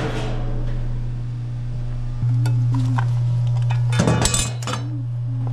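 Sheet-metal shroud of a refrigeration condensing unit being handled and taken off: a few light metallic clicks, then a quick cluster of clinks and rattles about four seconds in, over a steady low hum.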